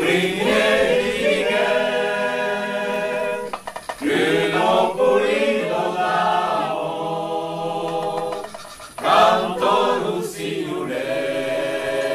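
A mixed group of men and women singing an Occitan folk song together unaccompanied, in long held phrases broken by two short pauses for breath.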